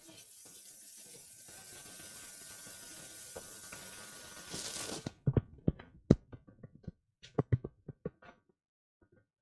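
A steady hiss that cuts off suddenly about five seconds in, followed by a run of irregular sharp knocks and clicks for about three seconds.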